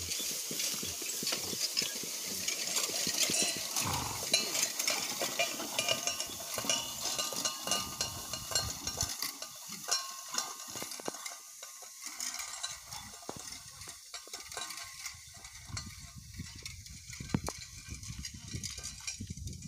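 Horse-drawn hay rake working through dry cut hay: a dense crackling rustle of hay with light rattling clicks from the rake. It grows quieter about halfway through.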